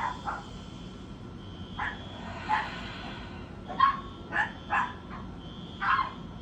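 Dog barking in short, separate yaps, about eight of them spaced irregularly.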